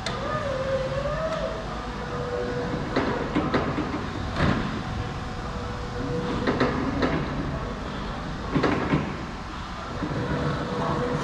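Raymond R40TT electric reach truck being driven: its electric drive motor whines, rising and falling in pitch near the start and then holding steady, with several sharp clicks and clunks along the way.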